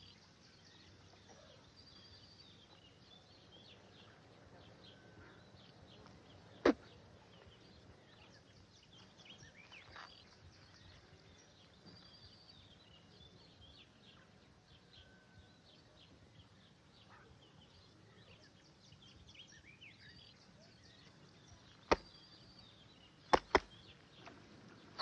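Faint outdoor ambience with quiet bird chirps throughout. One sharp, brief swish about a quarter of the way in and three more close together near the end.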